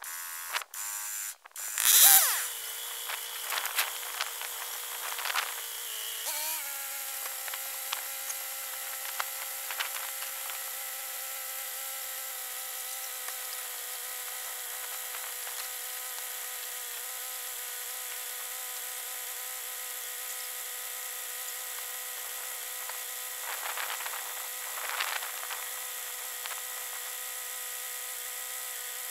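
A loud knock about two seconds in, then a motor that starts about six seconds in and runs at one steady speed with a steady pitched drone.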